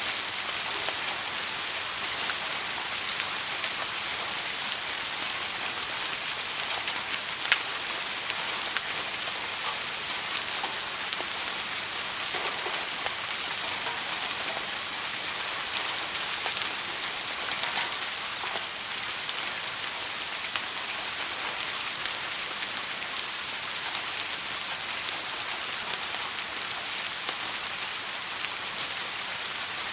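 Steady soft rain, an even hiss with scattered sharper drop ticks, one louder drip about seven seconds in.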